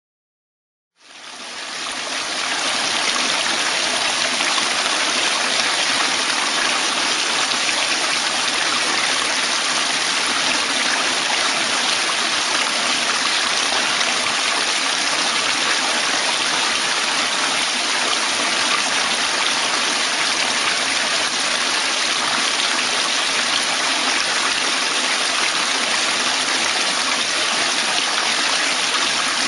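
Steady rushing water, like a stream or a waterfall. It fades in about a second in and then holds even, with no splashes or breaks.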